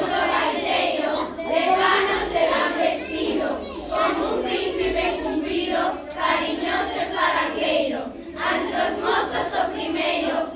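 A group of schoolchildren singing together, many young voices at once.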